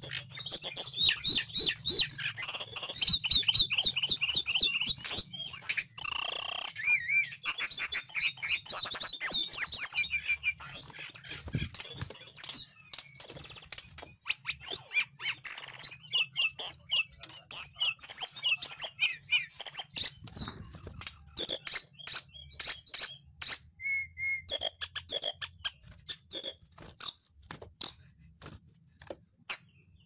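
Caged tledekan gunung, a blue-and-orange flycatcher, singing hard: long runs of quick, high, sliding whistled notes and trills, broken by short pauses.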